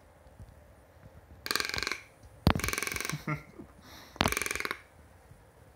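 A toucan gives three short, rough, rattling calls about a second apart.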